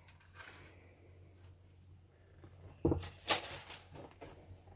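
Handling noise from plastic model-kit sprues: a quick cluster of sharp knocks and rattles about three seconds in, as the grey plastic parts frames are put down, then one more knock near the end.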